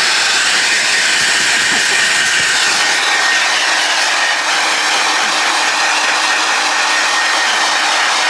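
Hand-held hair dryer blowing on long wet hair, a loud steady rush of air with a thin high whine running under it.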